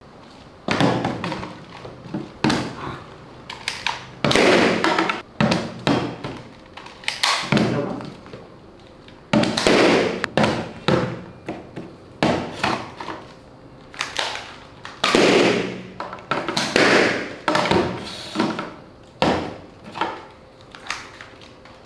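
A rapid series of sharp pops and bangs, roughly one a second at irregular spacing, each dying away quickly.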